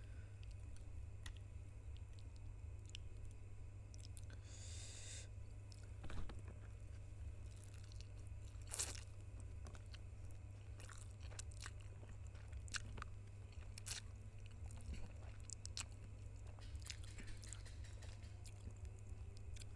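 Close-miked eating of spicy noodles: chewing with scattered crunchy clicks, a short hissing patch about four seconds in and a few louder sharp clicks, over a steady low hum.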